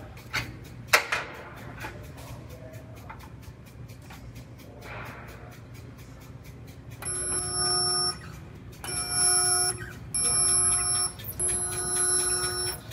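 Resistance spot welder firing four welds on a replacement frame rail section, each weld a loud steady buzzing tone about a second long, starting about seven seconds in. Before that, a sharp click about a second in and light handling noise.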